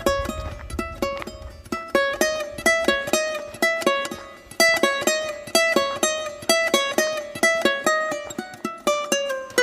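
Background music: brisk plucked ukulele-like notes in a steady rhythm.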